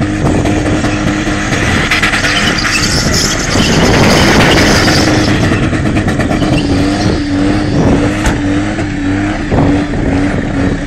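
Holden Commodore V8 held at high revs in a burnout, its rear tyres spinning against the pad under a hiss of tyre noise. In the second half the engine note wavers in quick regular pulses.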